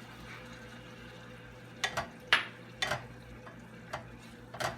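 A utensil stirring butter and flour into a paste in a saucepan, with a few sharp clicks of the utensil knocking against the pan in the second half.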